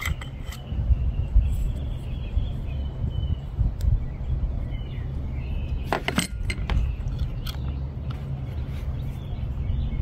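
Small clicks and clinks of a screwdriver and the metal and plastic parts of a brushless DC fan motor being handled and fitted together, with a quick cluster of sharp clicks about six seconds in. A steady low rumble runs underneath.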